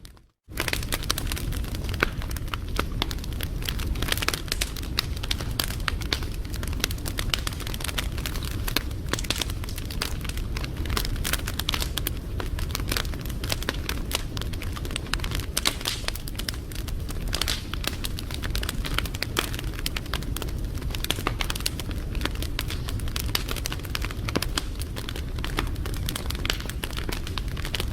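Wood fire crackling steadily, with dense irregular pops and snaps over a low rumble of flames. The sound drops out for about half a second right at the start.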